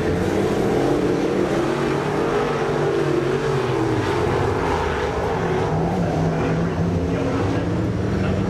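Dirt late model race cars' V8 engines running hard around a dirt oval: a steady, loud engine note whose pitch wavers slightly as the cars lap.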